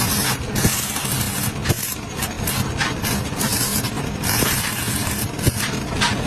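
An engine running steadily at idle, with repeated short bursts of hiss and a few sharp clicks over it.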